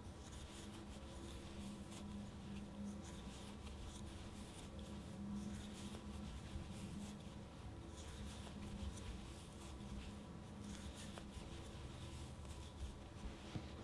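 Faint, irregular rustling and scratching of chunky yarn as an 8 mm wooden crochet hook works single crochet stitches, pulling loops through. A low steady hum sits underneath.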